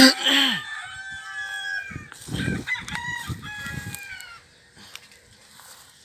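A short loud noise at the start, then a rooster crowing: long drawn-out calls that fall slightly in pitch and fade out about four and a half seconds in.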